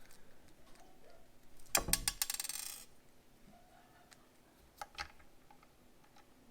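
Small PB 2x4 mm screws rattling and clinking as they are handled: a dense burst of quick clinks about two seconds in, lasting about a second, then a couple of single light clicks.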